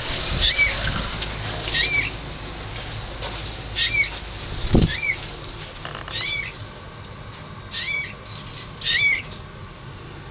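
Eurasian bullfinch giving its soft piping call: about seven short whistled notes, each rising then falling, spaced a second or so apart. A low thump near the middle.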